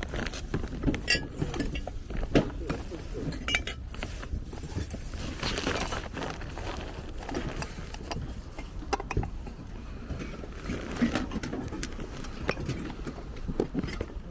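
Scattered clinks and knocks of small hard objects, like crockery or glassware being handled, at irregular moments throughout.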